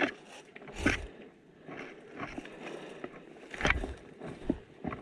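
Footsteps and rustling as someone moves through undergrowth, with two heavier thumps about a second in and again near four seconds in.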